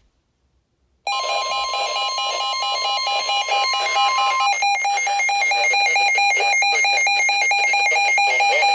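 Emergency alert attention tone: after about a second of silence, a loud steady alarm of several fixed tones sounds together, one of them dropping out about halfway through while the rest hold on.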